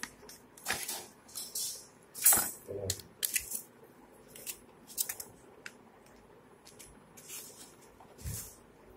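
Cardboard phone box and paper packaging being handled: irregular rustles, scrapes and light taps, several in the first half and a few more towards the end.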